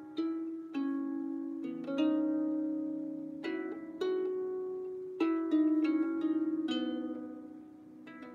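Harp played slowly and freely: single plucked notes and short runs of two or three notes, each ringing out and fading before the next. The strings are out of tune.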